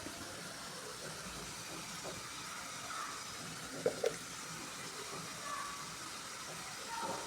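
Food cooking in a pan with a steady hiss, and two light taps about four seconds in.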